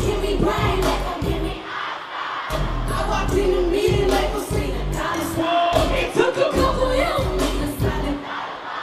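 Live hip-hop performance: a woman's rap vocals over a bass-heavy beat through a festival sound system, the deep bass dropping out briefly a few times.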